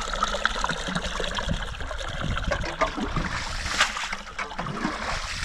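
Water trickling, with many small irregular splashes.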